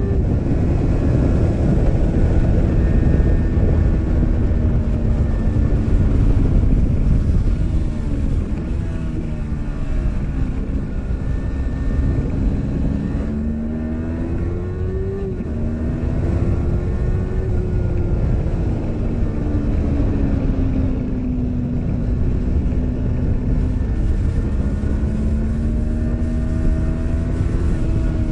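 Yamaha R3 motorcycle's parallel-twin engine running hard on track, its pitch rising under throttle and falling off into corners, under a heavy rush of wind on the microphone.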